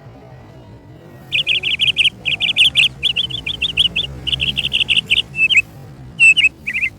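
A bird chirping close by: rapid runs of short, high notes, about eight a second, starting about a second in, with a few downslurred notes near the end.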